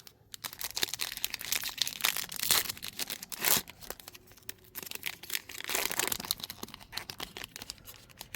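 Plastic trading-card pack wrapper crinkling and being torn open: a dense crackle starting about half a second in, with louder rips around two and a half and three and a half seconds in.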